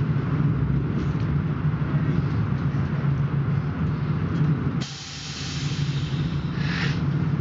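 Passenger train running, heard from inside the carriage: a steady low hum and rumble with a hiss above it. About five seconds in the hum suddenly drops away and a sharp hiss takes over for about two seconds, loudest near the end of it, before the running noise returns.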